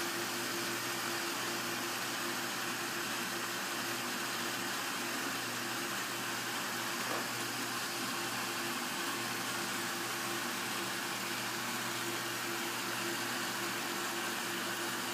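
Small electric motors spinning the rotors of model robot helicopters, a steady whirr with a constant hum and hiss.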